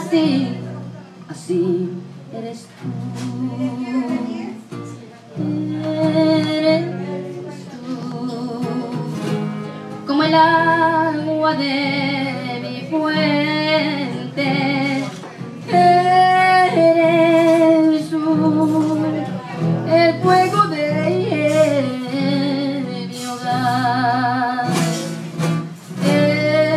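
Music: a woman singing long phrases with a wide vibrato over guitar accompaniment.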